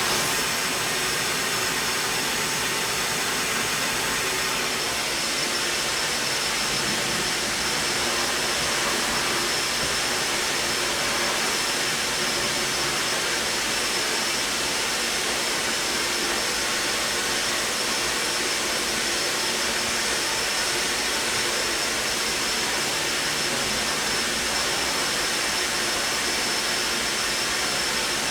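Vacuum cleaner running steadily: a continuous rushing hiss with a high motor whine that strengthens about five seconds in and then holds.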